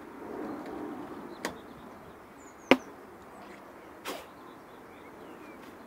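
Honeybees buzzing around an open hive, with three sharp knocks as the hive boxes are handled and set back in place; the knock near the middle is the loudest.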